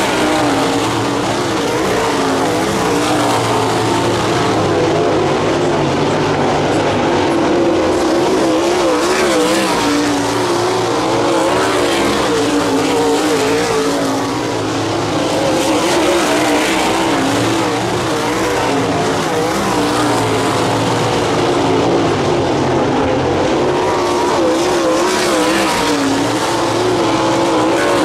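Winged 360 sprint cars' V8 engines at racing speed, their pitch rising and falling continually as the drivers get on and off the throttle through the turns and down the straights.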